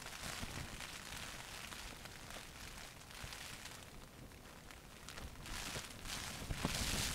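Wind rumbling on the microphone with a fine crackling patter over it, louder near the end.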